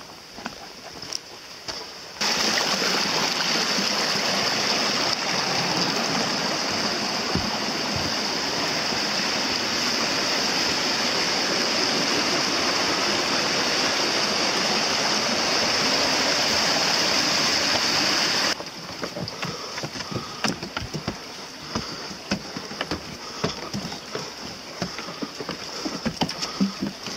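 Steady rushing of running water, which starts abruptly about two seconds in and cuts off just as abruptly about two-thirds of the way through. After it come scattered footsteps and light knocks on wooden steps.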